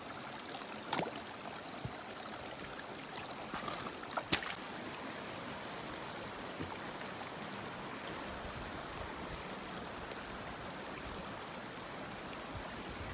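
Mountain creek water rushing steadily, with a few sharp knocks in the first five seconds.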